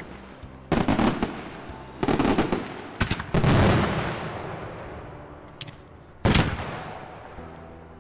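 Diwali fireworks going off: about five loud bangs, each trailing off slowly, the biggest one about three and a half seconds in and another near the end.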